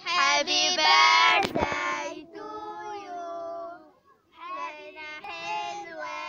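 A child singing a melody over a steady held note, with a short pause about four seconds in. A single sharp click comes about a second and a half in.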